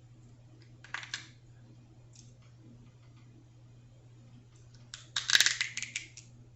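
Crab shell being cracked and picked apart by hand: a couple of sharp clicks about a second in, then a louder burst of crackling and snapping near the end.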